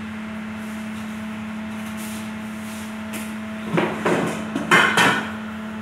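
Steady electric hum of a running stand fan's motor, broken about four seconds in by a few loud clattering knocks, the loudest near the end.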